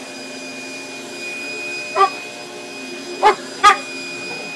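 Upright vacuum cleaner running with a steady whine while a boxer dog barks at it three times: once about two seconds in, then twice close together over a second later.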